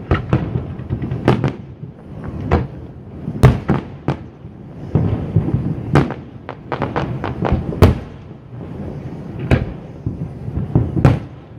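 Aerial firework shells bursting in quick, irregular succession: a dozen or more sharp bangs with a low rumble between them.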